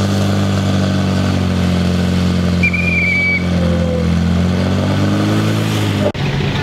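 Portable fire pump's engine running hard at high revs, its note steady and rising slightly near the end before cutting off suddenly about six seconds in. A short high whistle sounds about three seconds in.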